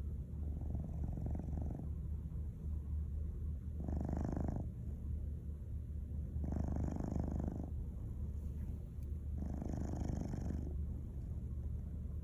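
Domestic cat snoring in its sleep, four rasping breaths about every two and a half to three seconds over a steady low rumble.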